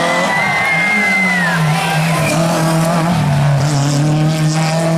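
Rally car engine running hard at high revs, its pitch dipping and climbing again about a second in.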